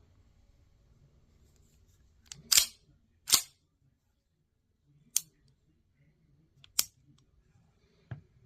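Sharp mechanical clicks and clacks from handling a Smith & Wesson 1911 pistol: two loud clacks close together a little after two seconds in, then three single clicks spaced about a second and a half apart.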